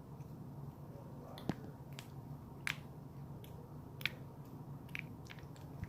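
Faint, sticky putty slime being kneaded and pulled by hand, giving a few scattered soft clicks and pops.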